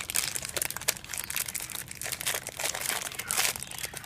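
Thin clear plastic bag crinkling as hands work a figure out of it, with a dense run of irregular crackles.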